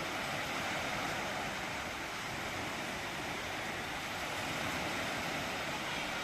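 Sea waves washing onto a sandy beach: a steady rushing hiss with no distinct breaks.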